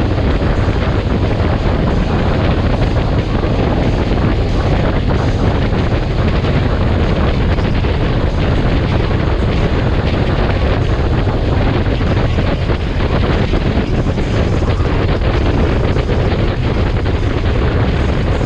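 Steady wind rush buffeting the microphone of a camera riding along at road speed on a motorcycle, over a low, even drone of engine and road noise.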